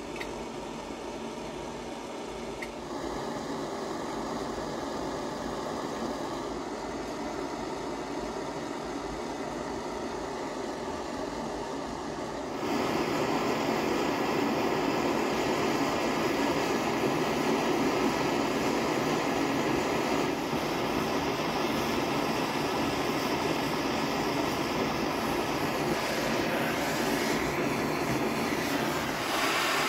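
Gas torch flame hissing steadily as it heats the steel scabbard for brazing. It turns clearly louder about twelve seconds in and holds steady after that.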